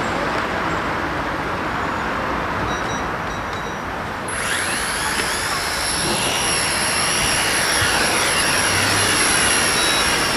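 Preo CX-003 toy quadcopter's motors and propellers starting up about four seconds in and whining as it lifts off and hovers, the pitch wavering up and down with the throttle. Wind rumbles on the microphone throughout.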